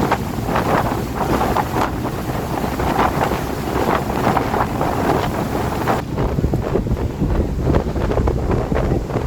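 Strong wind gusting in a rainstorm, buffeting the microphone with a heavy rumble and flickering gusts. About six seconds in the high hiss thins and the low rumble grows heavier.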